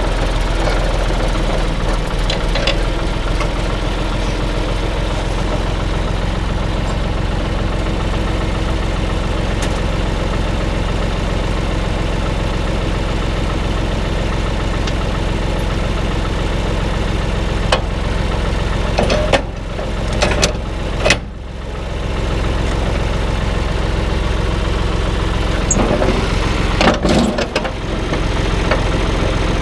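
Farm tractor's diesel engine running at a steady speed. It dips briefly about twenty seconds in, and there are a few irregular knocks and rattles near the end.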